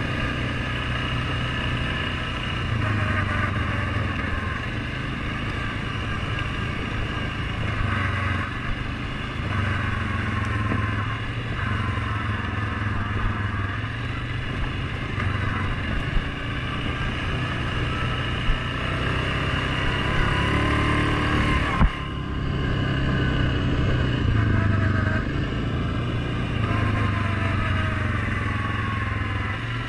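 Suzuki KingQuad 750 ATV's single-cylinder four-stroke engine running under way on a dirt trail, its pitch rising and falling with the throttle. A sharp knock comes about two-thirds of the way through.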